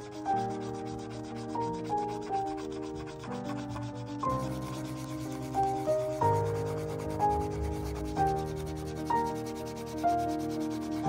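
Paint marker tip scrubbing back and forth over masking tape and card, a soft scratchy rubbing. Under it, background music: a slow melody of single struck notes, each starting sharply and dying away, about one a second.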